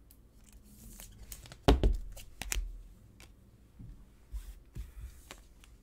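Trading cards and clear plastic card sleeves handled on a tabletop: a card slid into a sleeve, with rustling and scattered light clicks and taps. The loudest sounds are a few knocks about two seconds in.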